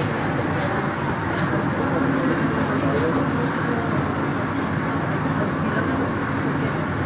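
Santiago Metro NS-16 rubber-tyred train running at speed, heard from the driver's cab: a steady rolling drone of tyres and traction motors. A couple of faint, brief high clicks come in the first few seconds.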